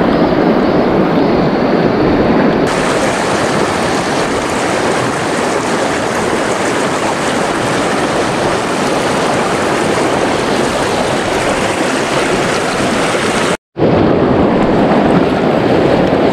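Rushing river rapids: a loud, steady rush of water that turns hissier about three seconds in and cuts out for a split second near the end.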